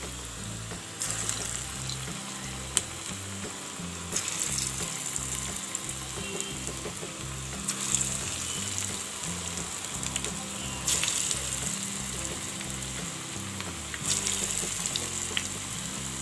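Moong dal fritter batter deep-frying in hot oil on high flame: a steady sizzle that flares louder five times, about every three to four seconds, as fresh spoonfuls of batter go into the oil.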